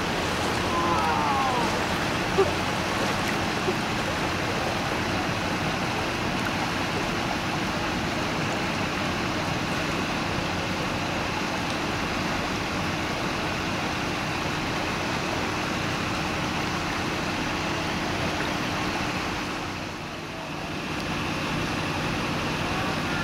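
Floodwater rushing steadily along a flooded street, a continuous wash of flowing water, with a low steady engine hum underneath from a pickup truck idling in the water.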